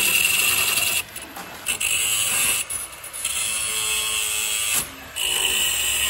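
Handheld cordless drill running in repeated spurts of about a second each with short pauses between, driving fasteners out of a wooden shipping crate.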